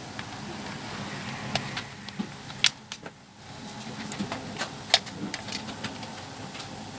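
Scattered clicks and taps of tools and plastic parts as a Nissan March power door lock is taken apart. Two sharper knocks come a little before the third second and at about the fifth, over a steady low background hum.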